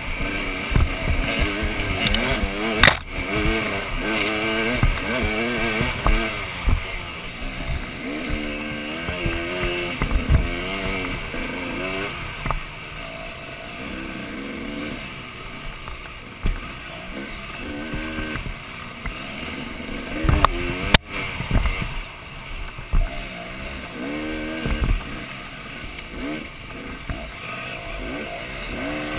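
Dirt bike engine revving up and down over and over as it is ridden along a twisting wooded trail. A sharp knock comes about three seconds in and another about twenty-one seconds in.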